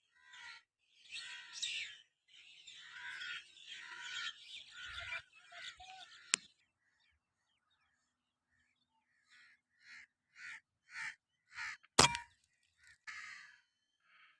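Birds calling with crow-like caws: a run of calls at first, then short calls about two a second. There are two sharp cracks of P10 airgun shots, a faint one about six seconds in and a loud one about twelve seconds in.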